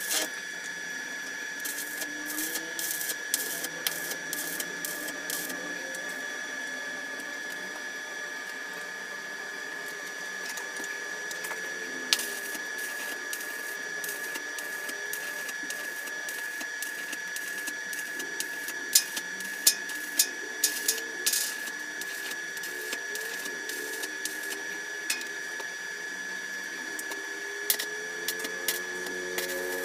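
Arc welding on a steel frame: irregular crackling and spitting from the arc over a steady high-pitched whine, with sharper pops in clusters now and then.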